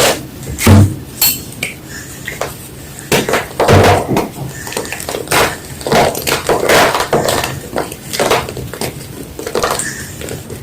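A block of white gym chalk crunching and crumbling in a run of irregular crunches, with dull thumps about one second and four seconds in.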